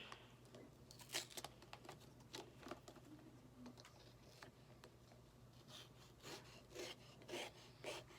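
Sharp blade slicing through cardboard packaging: faint, irregular scraping strokes, with one stronger stroke about a second in and a quicker run of strokes near the end.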